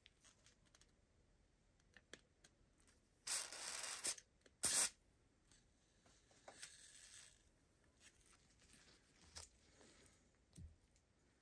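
Aerosol spray hissing through a straw nozzle into the rusty eye of a hammer head, in two short bursts about three and a half seconds in, the second one louder, then a fainter spray a little later. Small clicks and knocks of the hammer head being handled on the vise.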